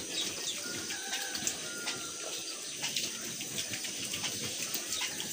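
Piglets eating and rooting at the wet concrete floor of their pen: a soft watery slurping noise with many small clicks and smacks.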